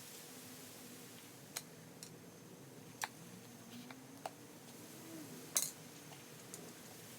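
Scattered light metallic clinks and taps, about five in all, the loudest a little over halfway through: hand tools and motorcycle fork parts being handled during front fork disassembly.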